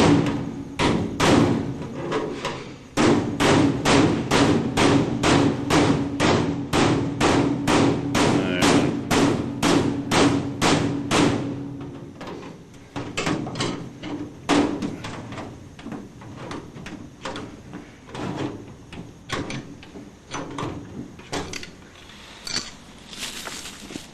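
Hammer blows on the sheet-metal casing of a new furnace, a quick run of ringing strikes at about two or three a second with a short break near the start. About halfway through the blows turn quieter and sparser.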